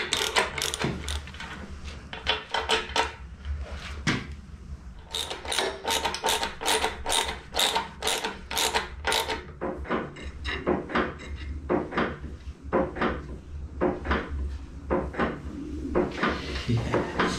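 Ratchet spanner clicking in quick runs as nuts on a steel locomotive chassis are turned, with short pauses between runs.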